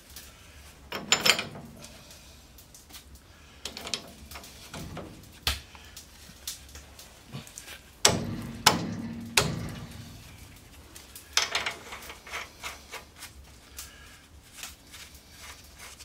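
Metal clanks and knocks as a bracket and hand tools are handled and fitted against a truck's front suspension: scattered single knocks with a brief ring, the loudest a cluster about eight to nine and a half seconds in.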